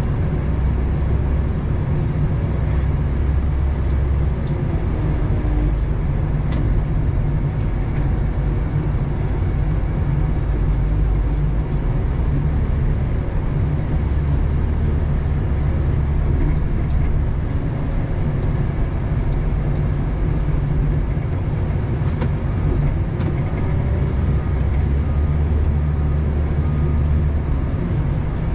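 Doosan DL250 wheel loader's engine running under load, heard from inside the cab, a deep steady note whose lowest part swells for a few seconds at a time several times as the machine works.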